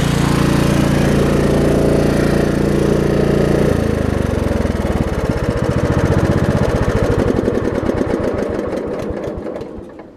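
Craftsman LT1750 riding mower engine running steadily. About four seconds in it drops off and slows, its firing pulses spreading out, as it winds down to a stop near the end: the engine being shut off.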